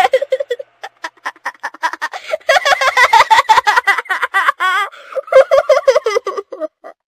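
High-pitched cartoon voice laughing in a long run of quick, choppy giggles that stops shortly before the end.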